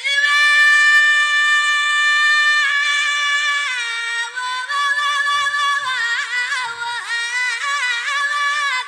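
Amazigh music: a high melody line holds a long, steady note, steps down, then breaks into quick ornamented turns from about five seconds in.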